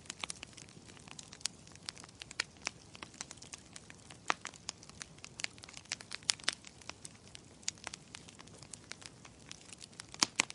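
Burning firewood crackling in a fireplace: irregular sharp pops and snaps over a soft hiss of flames.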